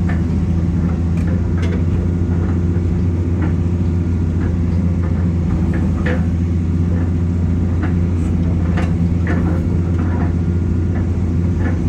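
Excavator's diesel engine running at a steady speed, with a few short clicks and knocks scattered over it.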